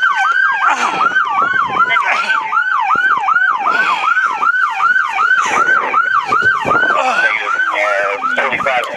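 Emergency-vehicle siren sounding a fast yelp, about three rising-and-falling sweeps a second, with a second siren's slow falling wail overlapping it in the first few seconds.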